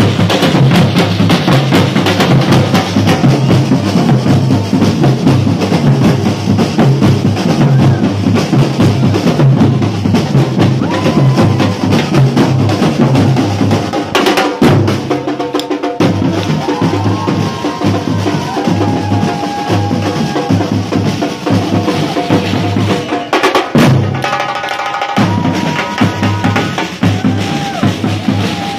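Batucada street drum band playing a driving samba rhythm on big surdo bass drums and snare drums. The drumming breaks off briefly about halfway through and again later before picking up.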